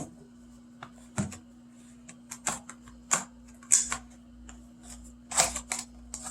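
Plastic packaging being handled and opened: a string of short, scattered crinkles and clicks, with the loudest just before four seconds in and again a little after five seconds.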